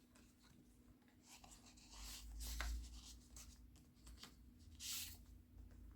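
Faint rustling and brushing of paper as the pages and tags of a handmade junk journal are handled and turned, in a few short scrapes with the clearest one about five seconds in. A faint steady hum runs underneath.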